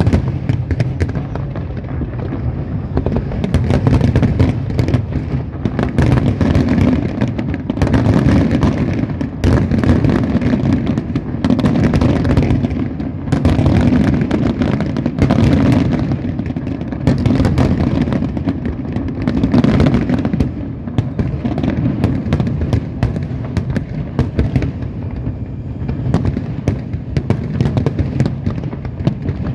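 Large fireworks display: a continuous barrage of rapid bangs over a deep rumble, swelling in loud waves every couple of seconds.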